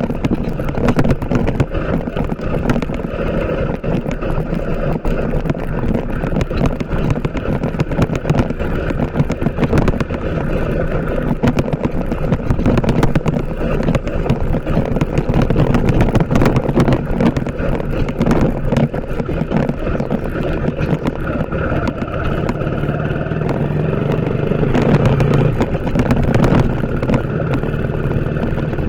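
TVS Apache RTR 160 4V motorcycle's single-cylinder engine running steadily as the bike is ridden, under a rough rushing noise, getting louder for a few seconds near the end.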